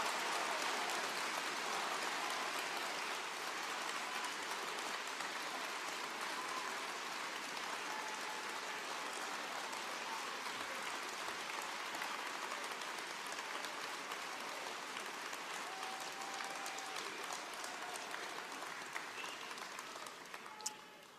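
A large audience applauding steadily for about twenty seconds, with a few faint shouts, then dying away near the end.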